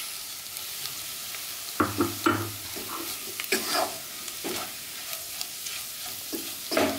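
Wooden spatula scraping and stirring in a non-stick pot over the steady sizzle of onion masala frying, as fried scrambled egg is mixed in. The stirring strokes start about two seconds in.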